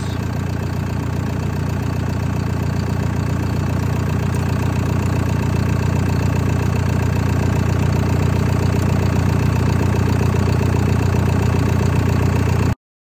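John Deere Tier 4 diesel engine idling steadily, cutting off suddenly near the end. It is running with some crankcase pressure pushing blow-by out the breather, which is pretty common with these Tier 4 engines.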